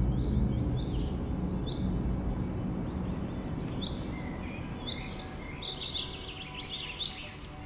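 Birds calling in short, high, falling chirps that come thicker and faster in the second half, over a steady low background rumble.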